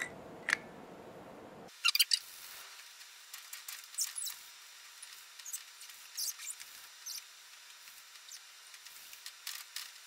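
A fingertip squeaking and rubbing across a smooth white board as letters are traced on it, in a string of short, high squeaks about once a second.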